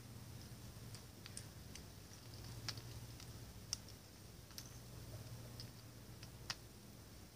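Faint, irregular sharp clicks of a jackdaw and collared doves pecking at seed on paving stones, with a few louder taps among them, over a faint low hum.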